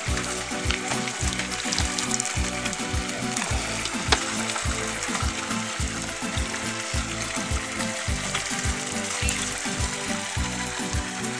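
Background music with a steady bass-drum beat, about two to three beats a second, over a bass line and a constant hiss.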